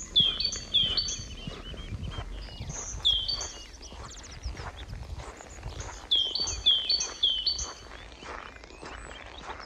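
A small songbird singing three short runs of quick, high, repeated chirping notes, over footsteps crunching on a packed snowy path.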